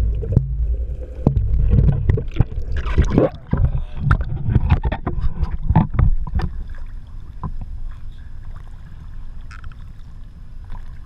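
Action camera in its waterproof housing rising through the water: a low underwater rumble, then a few seconds of splashing and sloshing as it breaks the surface. After that, quieter water lapping and wind.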